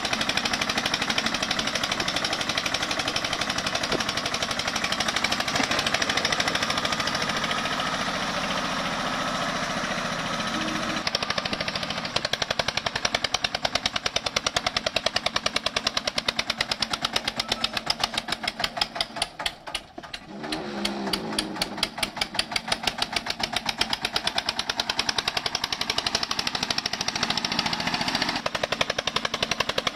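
Eicher diesel tractor engine running hard under a heavy load, with a loud, rapid, even exhaust beat. About twenty seconds in it eases off briefly, then picks back up.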